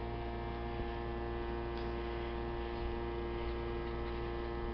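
Steady electrical mains hum: a constant drone made of several even tones that does not change.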